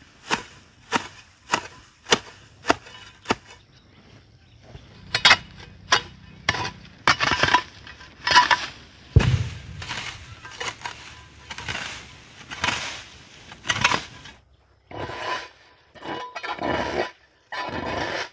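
Hoe blade chopping and scraping through dry grass and soil: a quick regular run of strikes at first, then uneven scraping and rustling as the grass is cleared, with one heavy thump about nine seconds in.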